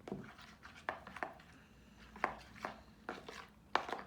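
Hard objects knocking and tapping at an irregular pace, a dozen or so sharp knocks over a few seconds, some ringing briefly.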